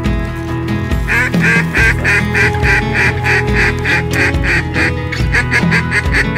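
Rapid, even series of mallard hen quacks, about three a second, starting about a second in with a short break near the end, over background music with a steady beat.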